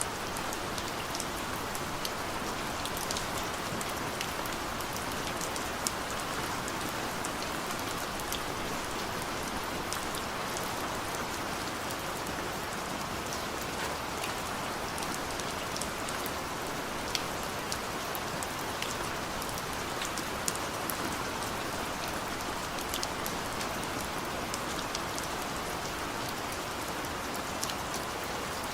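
Heavy rain falling steadily, a dense even hiss with scattered sharper drop impacts throughout.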